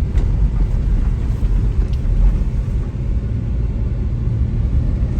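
Steady low rumble of a car driving along a rough, bumpy road, heard from inside the car: road and engine noise.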